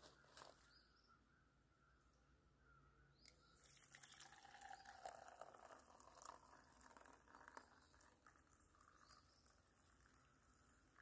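Faint trickle of just-boiled water poured from a small metal camping pot into an enamel mug of instant coffee. It starts about a third of the way in and tails off near the end.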